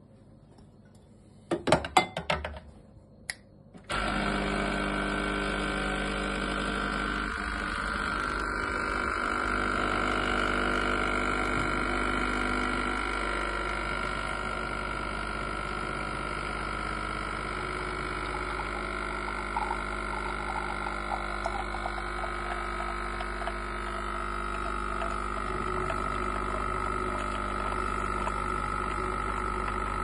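A few sharp clicks and knocks, then about four seconds in the vibratory pump of a De'Longhi Micalite espresso machine starts and runs with a steady buzzing hum as it brews a double espresso.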